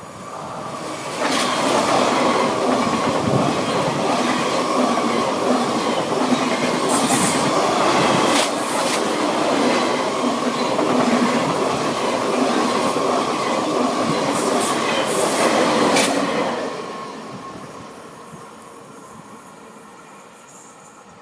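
SNCF TGV high-speed train running past along the platform: a loud rush of wheel and rail noise builds about a second in, holds for some fifteen seconds with a steady whine and a few sharp clicks, then fades as the train draws away.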